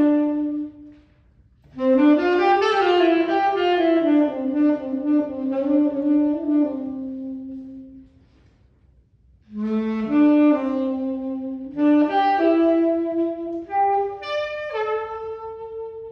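Unaccompanied tenor saxophone playing a melody in three phrases with short pauses between them, the last phrase climbing to a held higher note near the end.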